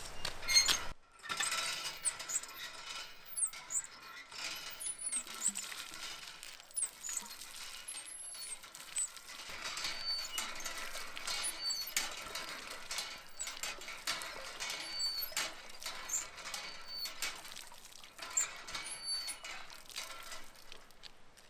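Hand-operated well pump being worked: the handle and pump mechanism give a high squeak and clank with each stroke, repeating again and again, while water splashes from the spout into a plastic bottle.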